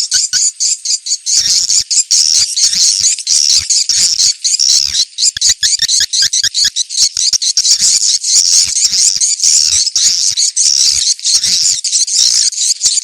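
Swiftlets twittering in a dense, continuous high-pitched chorus, cut by quick runs of clicks. This is a swiftlet 'ceklok' lure call, played to draw swiftlets to a site for a swiftlet house.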